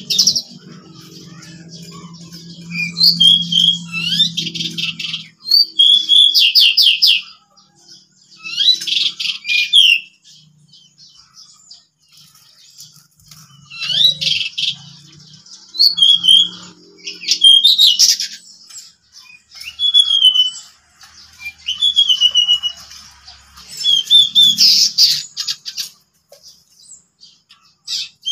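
Pied bushchats singing in loud bursts of fast, high trilling and chattering phrases, each a second or two long with short pauses between. This is the sustained full song that keepers call ngeplon.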